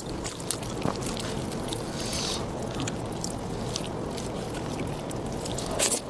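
Close-miked eating sounds: wet chewing and many small sharp mouth clicks over a steady background hiss.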